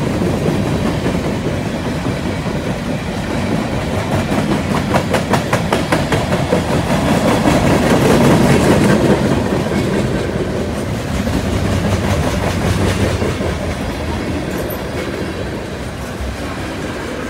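Freight cars of a passing freight train rolling by: a steady rumble of steel wheels on rail, with runs of rhythmic clicking from the wheels, loudest about halfway through.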